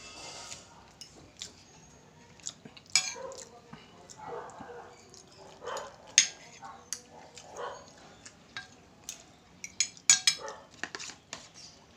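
Metal spoon and fork clinking and scraping against a ceramic plate in irregular sharp clinks. The loudest comes about six seconds in, with a quick cluster of clinks around ten seconds.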